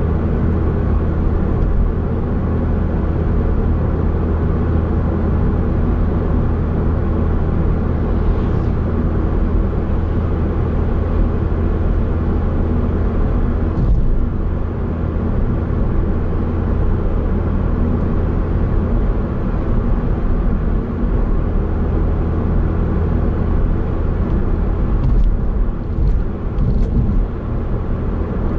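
Steady in-cabin noise of a car cruising on a highway: low tyre and road rumble with engine hum, heard from inside the car. There is a brief knock about halfway through and a few faint ticks near the end.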